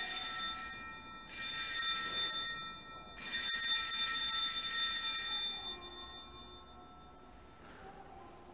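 Altar bells (sanctus bells) rung three times at the elevation of the chalice. Each ring is a bright cluster of high bell tones, and the third is left to ring out and fade over a few seconds.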